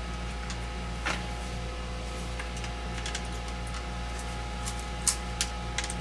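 A screwdriver working the clamp screw on a sump pump's PVC discharge pipe fitting: a few faint metallic clicks and scrapes, one about a second in and a small cluster near the end, over a steady low hum.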